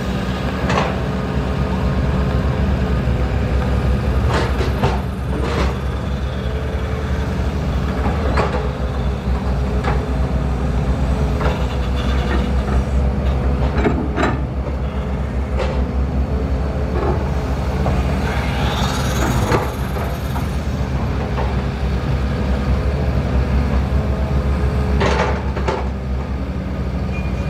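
Diesel engine of a Matador ME210LC-1 crawler excavator running steadily under hydraulic load as it digs and loads a dump truck, with repeated clanks and knocks of the bucket and soil.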